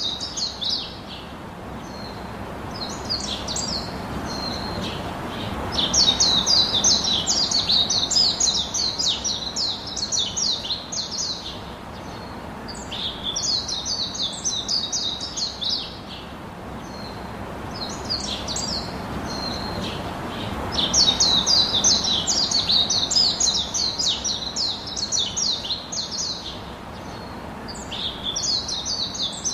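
A bird chirping in rapid, high trilled series of a few seconds each, with short pauses between. Beneath it is a soft rustle of salted bitter gourd slices being tossed by hand in a plastic bowl.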